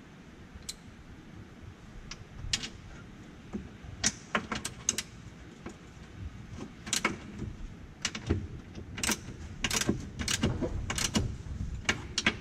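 Irregular metallic clicks and clinks of a socket ratchet and wrench turning the bolts on a golf cart's rear suspension bushings, coming thicker in the second half.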